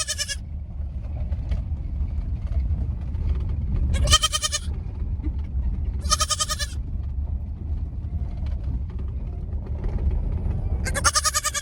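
A goat bleating four times in short, high-pitched calls, each about half a second long: one at the start, one about four seconds in, one about six seconds in and one at the end. A steady low rumble runs underneath.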